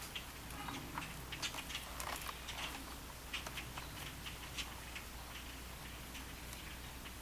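Scattered light clicks and taps at an uneven pace, over a faint low hum.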